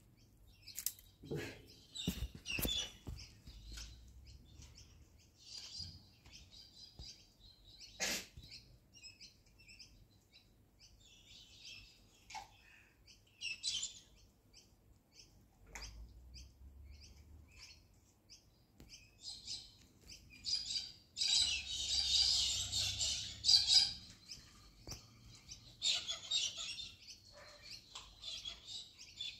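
Birds chirping and calling in short, scattered calls, growing busier for a few seconds about two-thirds of the way through. A few sharp clicks are heard near the start and again about eight seconds in.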